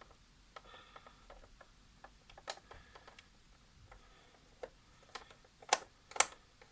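Scattered light clicks and taps of a long Torx screwdriver working on screws set deep in a coffee machine's plastic underside, with a few louder knocks near the end.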